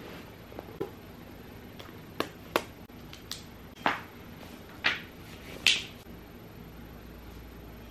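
Hardcover book being opened and its pages flipped: a string of short paper snaps and crisp page flicks, the last and loudest about six seconds in.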